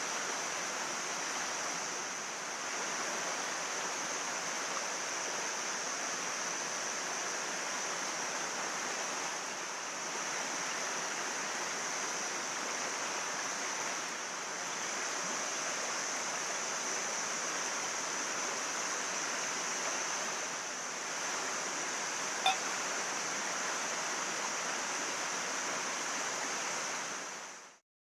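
Mountain stream flowing steadily, with one brief click about three-quarters of the way through; the sound cuts off suddenly at the very end.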